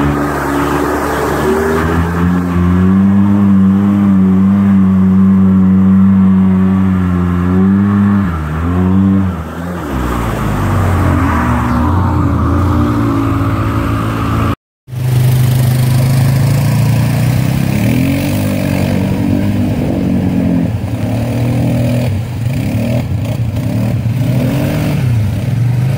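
Off-road vehicle engine running under load through a flooded mud trail, holding steady revs and then easing off and picking up again. The sound cuts out for a moment about halfway, and after that an engine runs with revs rising and falling.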